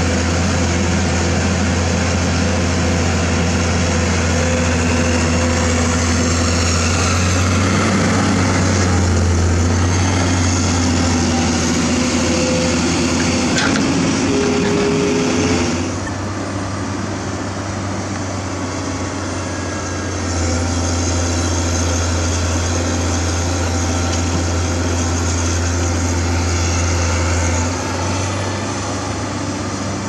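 Komatsu PC200 hydraulic excavator's diesel engine running steadily while digging, its level stepping up and down as the hydraulic load changes. A single short knock comes about halfway through.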